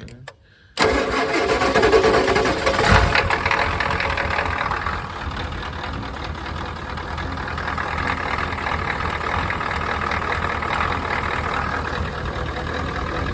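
Ford 7.3 IDI V8 diesel starting: it catches abruptly about a second in, is loudest for the next couple of seconds, then settles into a steady idle. The engine is cold-blooded, and the owner thinks it needs new injectors.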